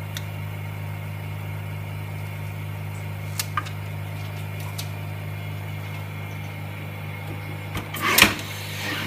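Steady low hum of a vacuum pump running on an LCD refurbishing machine. A few light clicks come about three and a half seconds in, and a short burst of clicks and rustle near the end as the screen and film are handled.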